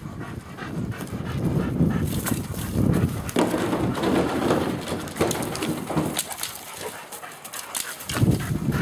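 Dogs whimpering while moving through dry grass, with rustling and footstep noise.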